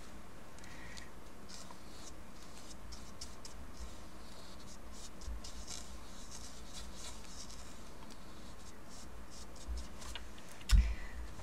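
A small paintbrush dabbing and brushing paint onto sketchbook paper, a run of soft, light scratchy strokes. A single low thump near the end is the loudest sound.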